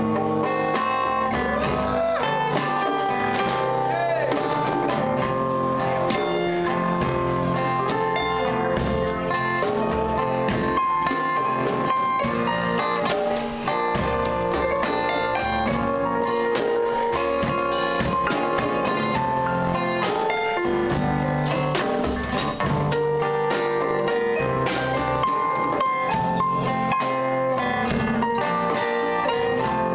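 Live band playing an instrumental break in a bluesy song: guitar leading over a drum kit.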